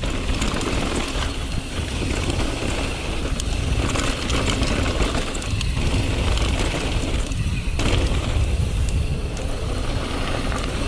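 Mountain bike riding down a dirt trail: wind rumbling on the microphone, with tyre noise and the bike clattering over rough ground.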